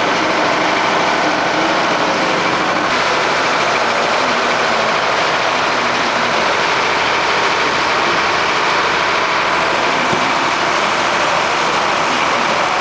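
Fire engine running steadily at the scene, a loud, even machine noise that holds without change.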